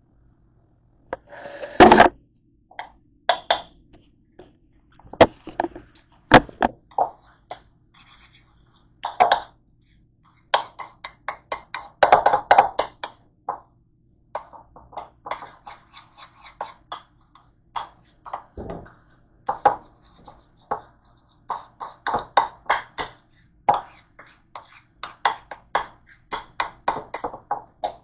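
Close-up eating sounds: a person chewing and smacking his lips in quick irregular clusters of wet clicks, with a few louder knocks, the strongest about two seconds in and a dull thump past the halfway mark.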